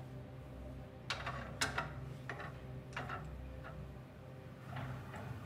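A few scattered light clicks and knocks over a low steady hum: wooden coat hangers knocking on a wardrobe rail as a toy doll is pulled out from among them.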